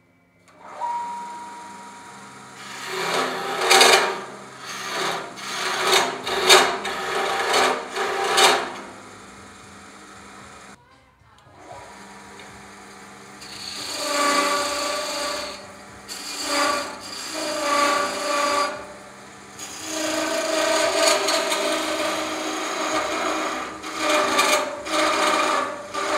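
Wood lathe spinning a walking-stick blank while a turning chisel cuts into it, a rasping scrape of wood in repeated passes lasting a second to a few seconds each. A brief lull falls about ten and a half seconds in, then the cutting resumes in longer passes.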